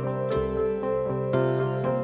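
Background music: gentle plucked-string notes over sustained low tones, changing notes about every half second.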